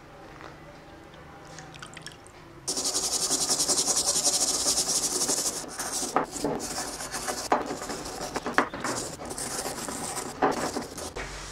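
Rusty steel hammer head being scrubbed by hand with an abrasive pad, a fast scratchy hiss that starts suddenly a few seconds in and then goes on in uneven strokes.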